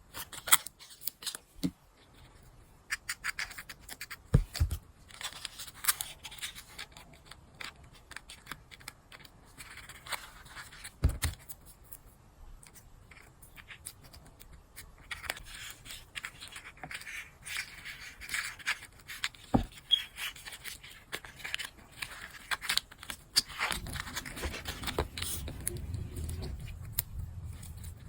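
Close-up crafting handling sounds: irregular small clicks, taps and scratchy scrapes of tools and craft materials being worked, with a few soft thumps and a low rubbing rumble near the end.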